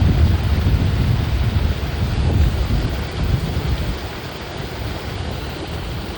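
Wind gusting across the microphone: a loud, rough low rumble that eases after about four seconds.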